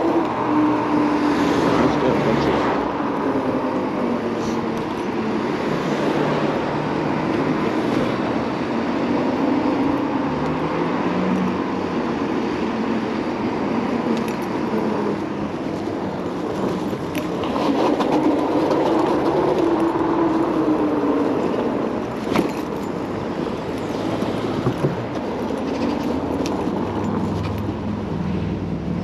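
Kaabo Wolf King GT electric scooter being ridden at speed: a steady rush of wind and road noise, with a hum that rises and falls in pitch a few times, and a few sharp clicks.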